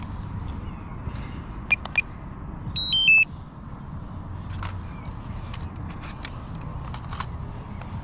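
DJI drone beeping: two short beeps about two seconds in, then a quick falling three-note chime. A few small clicks follow over a steady low background rumble.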